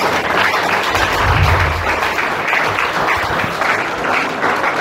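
Applause: many hands clapping steadily for several seconds.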